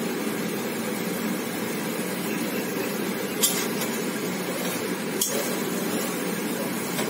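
A spoon clinks twice against a metal kadai, about three and a half and five seconds in, over a steady low hiss from the cooking.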